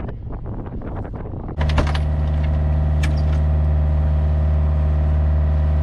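Wind buffeting the microphone, then about a second and a half in a sudden change to the loud, steady drone of a sailing yacht's inboard diesel engine running under way.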